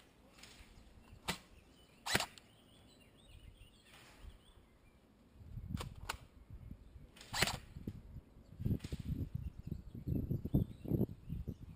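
Airsoft guns firing scattered single shots, sharp cracks a second or more apart. In the second half, low irregular thumps and rustling build up and grow louder near the end.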